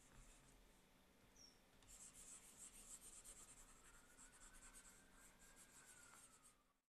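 Faint, rapid scratching of a pen stylus scrubbing back and forth across a drawing tablet, erasing strokes. It grows busier about two seconds in and stops abruptly near the end.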